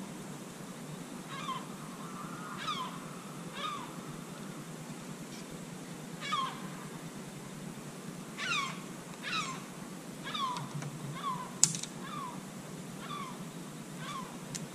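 An animal calling over and over in short, steeply falling mewing notes, roughly one a second, with a sharp click about two thirds of the way through.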